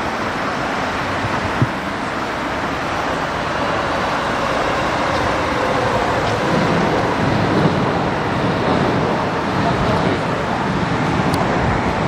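Street traffic noise: a steady wash of passing cars, growing a little louder partway through, with one sharp click about one and a half seconds in.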